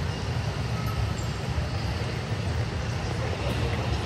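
Steady outdoor city ambience dominated by a low traffic rumble.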